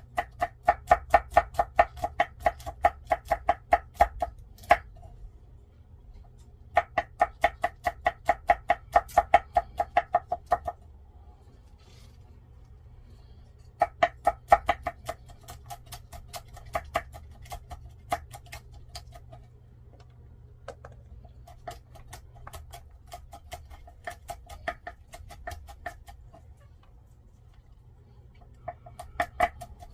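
Kitchen knife slicing chili peppers on a cutting board, in quick rhythmic runs of about five strokes a second, each run lasting a few seconds with short pauses between.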